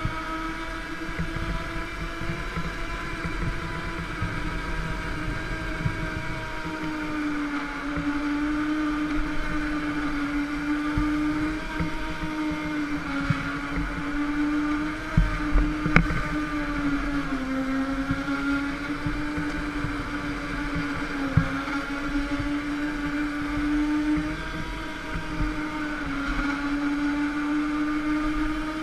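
Go-kart running laps, heard from a camera mounted on the kart: a steady drive hum whose pitch dips briefly several times. A few sharp knocks come about halfway through.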